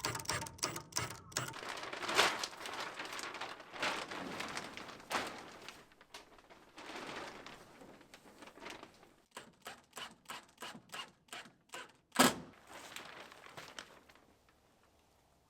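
Plastic tarp rustling and crinkling as it is handled and fitted over an opening, with many light taps. From about nine seconds in there is a run of sharp clicks, about three a second, and one louder crack a little after twelve seconds.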